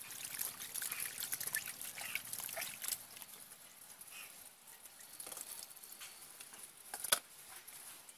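Hands swishing and rubbing cut pieces of spotted snakehead fish in a steel bowl of water, with a run of small splashes and wet clicks that eases after about three seconds. One sharp click stands out about seven seconds in.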